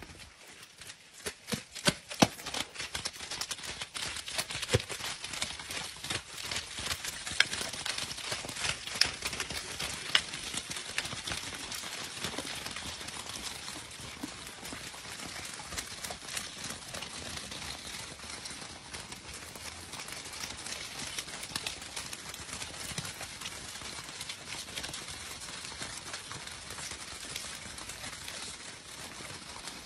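A herd of horses moving about on a dirt corral floor: many irregular, overlapping hoofbeats, thickest in the first dozen seconds and sparser after, over a steady hiss.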